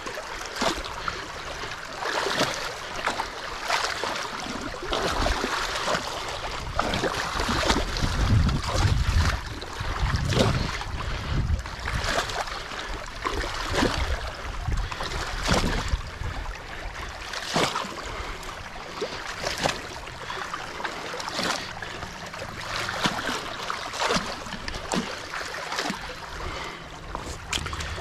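Muddy water rushing and splashing through a freshly raked breach in a beaver dam, with irregular splashes and scrapes as a potato rake drags mud and sticks out of the gap.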